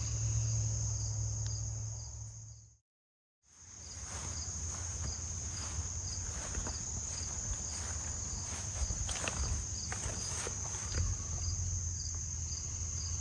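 Steady insect chorus, crickets calling in a high continuous trill with faint regular chirps, along with footsteps through mown grass. The sound cuts out completely for a moment about three seconds in.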